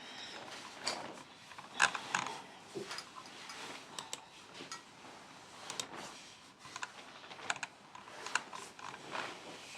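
Typing on a Redragon BS8772 low-profile mechanical keyboard: irregularly spaced key clicks, with a few sharper strokes standing out.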